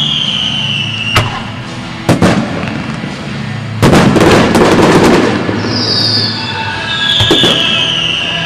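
Fireworks display: sharp bangs about one and two seconds in, a loud crackling burst lasting over a second around the middle, and long falling whistles at the start and again near the end.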